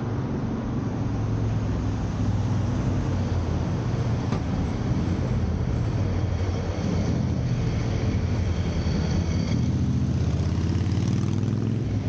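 A vehicle running close by: a steady low engine-like rumble, with faint high whining tones joining in during the second half.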